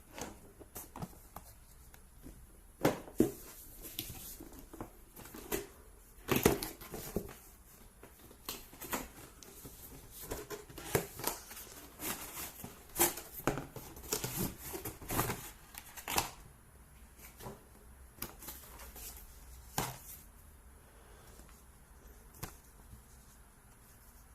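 Packaging being handled and opened: irregular rustles, crinkles and short knocks, busiest for the first two-thirds, then only a few scattered clicks.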